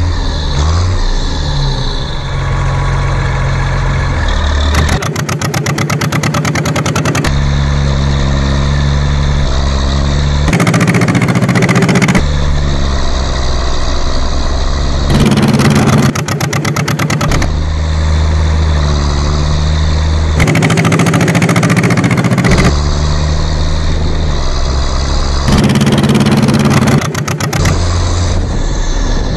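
Tractor engine sound effect. A steady engine note alternates about every five seconds with roughly two-second stretches of rapid chugging, like the engine working hard under load.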